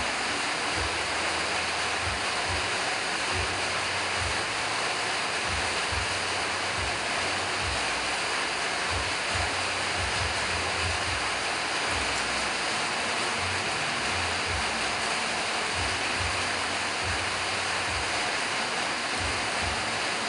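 A steady rushing noise with irregular low rumbles underneath.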